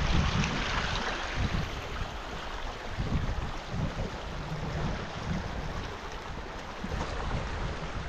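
Steady rush of river water, with wind buffeting the microphone in uneven low gusts.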